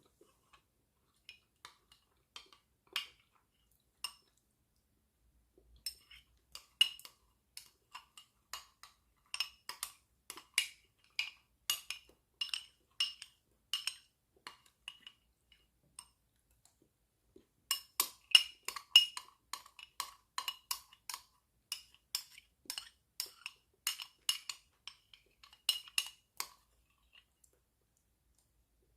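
A utensil clinking and tapping against a glass dish in quick, uneven strokes, several a second, with a brief pause near the middle.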